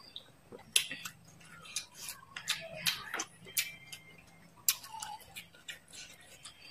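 Close-miked chewing with the mouth closed: irregular, crisp wet mouth clicks and crunches, a sharp one every half second or so.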